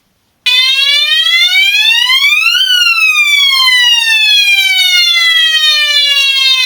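Loud electronic wail from a battery-powered children's bicycle siren: starting about half a second in, the tone rises in pitch over about two seconds, then falls more slowly for about four seconds and cuts off abruptly.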